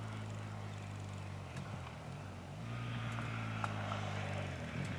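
Yamaha FZ-07's parallel-twin motorcycle engine running steadily at low revs, its note wavering briefly about two seconds in before settling again.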